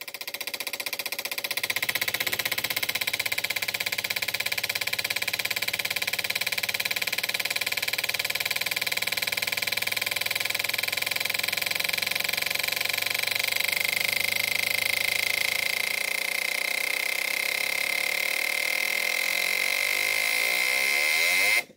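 Four fuel injectors firing rapidly on an Autool CT160 injector tester during its acceleration test: a steady, fast buzzing clatter of injector clicks with a steady whine. It stops abruptly near the end.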